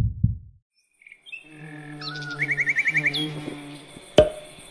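Animated logo sound effects: cartoon bird chirps and whistles, with a quick run of about seven repeated chirps, over a steady low hum, and a sharp click near the end. Two low thumps come at the very start.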